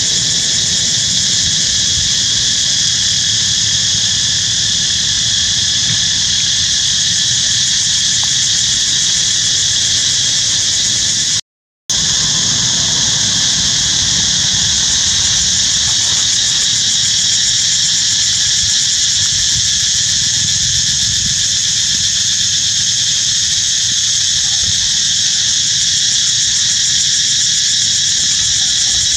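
Steady, loud insect chorus droning on several high pitches without a break, cutting out for a moment about eleven seconds in.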